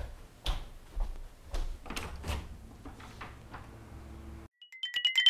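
A run of irregular knocks and bangs, roughly two a second, of household things being handled out of sight. Near the end they cut off and a beeping electronic tune on two high tones begins.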